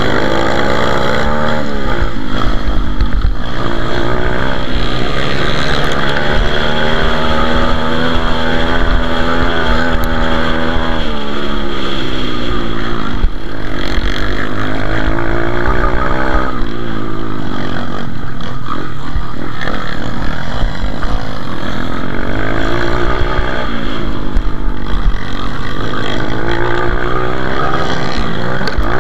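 Pit bike engine revving hard close up, its pitch climbing as it accelerates and dropping again and again as the rider shifts or rolls off the throttle for corners, with other pit bikes running nearby.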